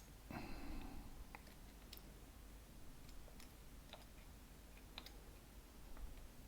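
Faint handling sounds as oil is put on a 3D-printer toolhead's bushings: a brief soft rustle about half a second in, then a few scattered light clicks.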